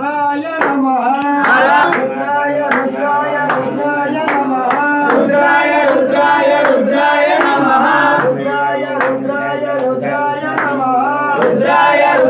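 Men's voices singing a Hindu devotional chant to Shiva, with a regular beat.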